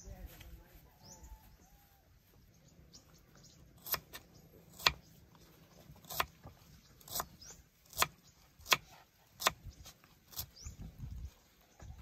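A knife chopping red onion on a thick wooden chopping board: sharp knocks less than a second apart, about eight of them, starting about four seconds in. Faint bird chirps come before the chopping begins.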